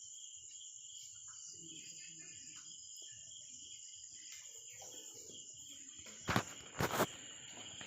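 Crickets trilling steadily in the background, with faint handling noise and two sharp knocks about six and seven seconds in.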